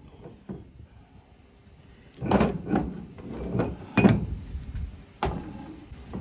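Heavy steel parts clanking and knocking together as a bearing puller and a differential carrier with its ring gear are handled. There are several separate knocks after a quiet first two seconds, the loudest about four seconds in.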